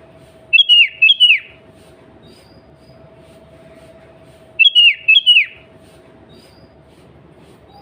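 Sooty-headed bulbul calling: two loud phrases about four seconds apart, each a pair of quick whistled notes that curve down in pitch. A steady low hum and faint high chirps lie underneath.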